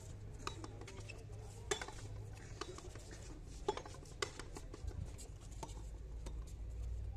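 Sharp smacks of a small rubber handball struck by hand and rebounding off a concrete frontón wall and floor during a rally, a series of irregularly spaced hits. The loudest come about two seconds in and twice near four seconds.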